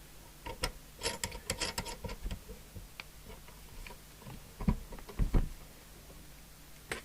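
Clicks and knocks of plugs and leads being connected to a CB radio on the bench, in a quick cluster early on, then two dull thumps about five seconds in and a single click near the end.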